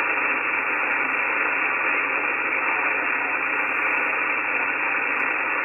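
HF amateur radio transceiver on the 17-metre band in receive, its speaker giving a steady, muffled hiss of band noise. No station's voice comes through it while the operator listens for a reply to his call.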